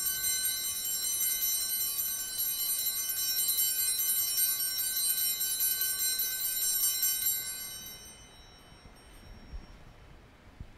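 Altar bells rung in a continuous shimmering peal for the elevation of the chalice at the consecration, stopping and fading out about three-quarters of the way through. A couple of soft knocks follow near the end.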